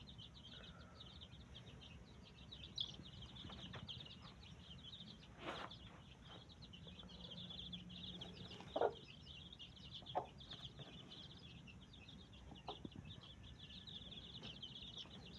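A flock of small birds chirping nonstop in a rapid, high chatter, with a few short, lower calls or knocks breaking in; the loudest comes about nine seconds in.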